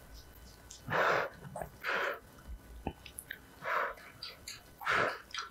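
A person eating very spicy instant noodles: four short, noisy breaths and slurps through mouth and nose, about a second apart, with a light utensil click near the middle.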